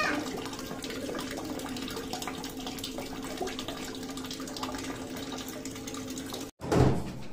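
RO water purifier's booster pump running with a steady hum, with water flowing through the unit. About six and a half seconds in the sound cuts out briefly, then a short loud burst of noise follows.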